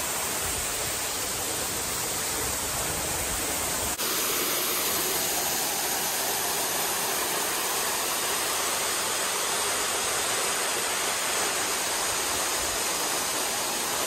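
Large waterfall pouring, heard from right beside it: a steady, loud rush of falling water, with a brief break about four seconds in.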